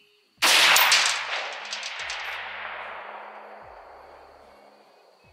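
A single rifle shot from a scoped AR-style rifle: a sharp crack about half a second in, followed by a long rolling echo that fades away over about four seconds.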